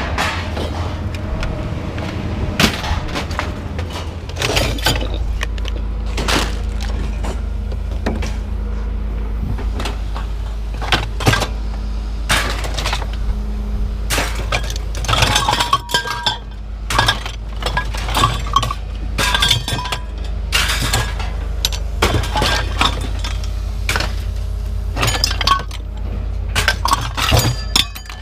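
Pieces of scrap metal being tossed onto a pile, a run of irregular clanks, clatters and crashes, with a steady low engine rumble underneath that grows stronger a few seconds in.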